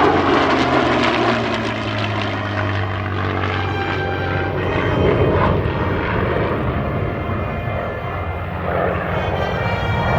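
An F-22 Raptor and a P-51D Mustang flying past together in formation, the engine noise falling in pitch as they go by. Music plays underneath, more plainly near the end.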